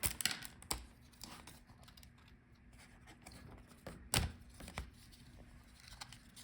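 Laptop speakers being pulled out of the plastic case: a few sharp plastic clicks, the loudest about four seconds in, between quieter rustling and handling noises.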